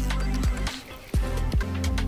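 Background music with sustained tones and repeated drum hits.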